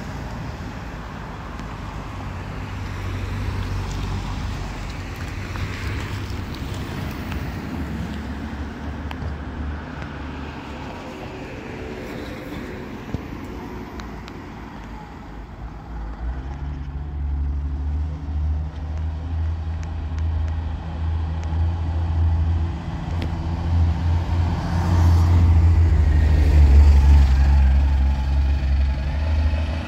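Road traffic passing, then from about halfway a heavy engine's low, steady drone builds and is loudest near the end as an Optare Solo CNG single-deck bus passes close by and moves away.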